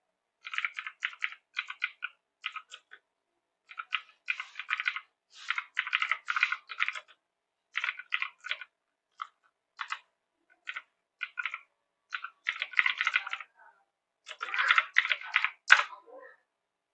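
Computer keyboard typing in quick bursts of keystrokes with short pauses between them, ending with a heavier key press near the end.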